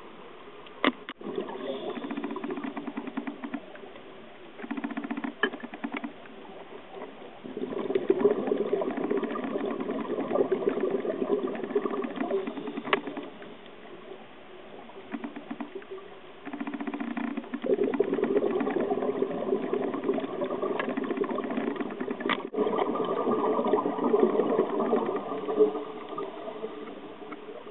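Scuba diver's exhaled bubbles from the regulator gurgling past the underwater camera in long stretches of several seconds, between quieter stretches of steady hiss, with a few sharp clicks.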